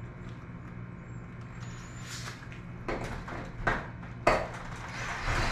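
Cordless drill driving a screw through a PVC pipe coupler into a metal garage door panel in a few short spurts, with sharp knocks against the door, one loudest a little past the middle.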